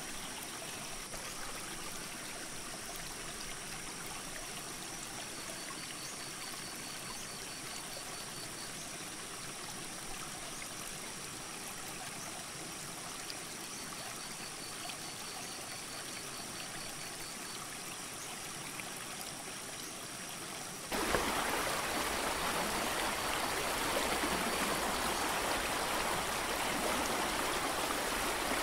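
Steady rushing of a mountain creek, which turns suddenly louder about three-quarters of the way through.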